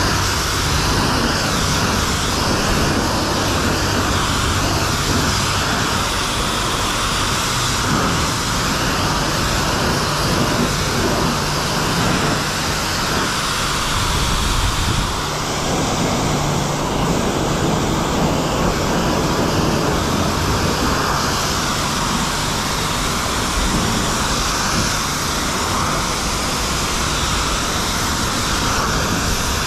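High-pressure wand at a self-serve car wash spraying a steady jet of water onto a pickup truck's bodywork.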